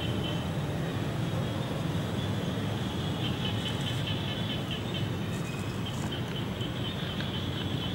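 Steady outdoor ambience: a constant low rumble with a faint band of high, rapidly pulsing chirps that comes and goes. No sound from the monkeys stands out.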